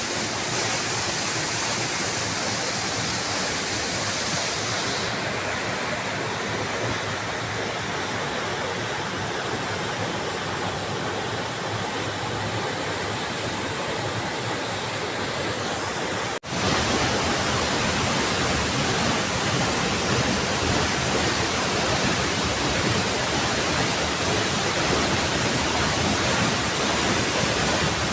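Steady rush of flowing water from a mountain river with cascades. It gets a little louder after an abrupt cut about 16 seconds in.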